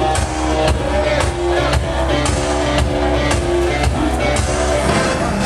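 Loud pop dance music with a steady drum beat, played over a PA for a drag performance; the bass drops out near the end.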